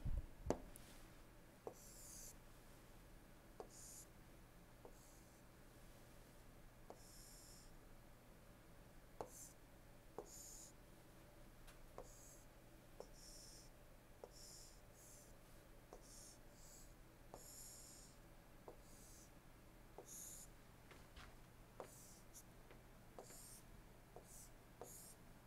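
Faint pen strokes on an interactive display screen as a line diagram is drawn: short scratchy strokes with light taps about once a second, over a faint low hum.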